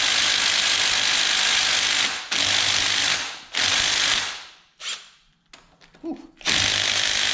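Small cordless power driver rattling in repeated bursts on a stuck bolt of an ATV cylinder head cover, with short pauses between tries; the bolt is not coming loose.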